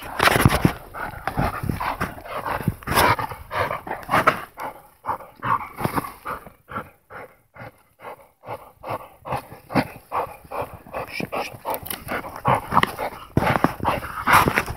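American pit bull terrier biting and tearing at a tree branch: a rapid, irregular run of crunches and snaps of wood mixed with the dog's own noises. It eases off for a few seconds in the middle, then picks up again.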